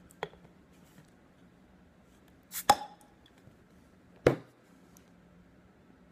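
Beer bottle cap being prised off with the edge of a plastic lotion bottle: a light click, then a sharp crack with a brief ring as the cap pops off, and a duller knock about a second and a half later.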